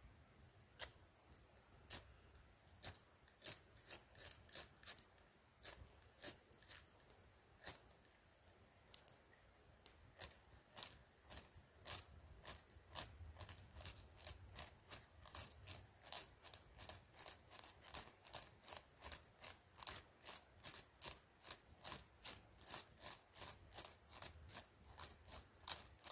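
A hand-held fire-starting striker scraped over and over onto tinder: short, sharp scrapes, a few scattered ones at first, then a steady run of about two a second from around ten seconds in.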